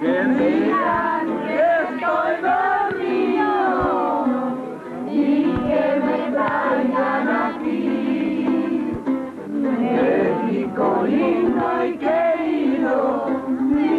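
A girl singing a song, with a group of voices singing along.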